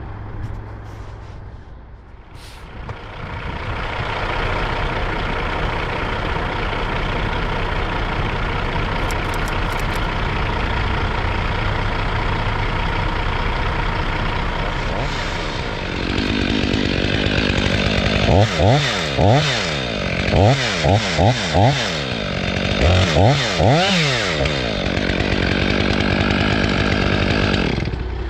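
Crane truck's engine running steadily, with a chainsaw revved up and down about ten times in quick short bursts a little past halfway through.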